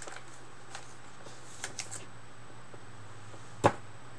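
Trading card being slid into a soft plastic penny sleeve and handled with the pack: a few faint rustles and crinkles, then one sharper tap near the end. A low steady hum runs underneath.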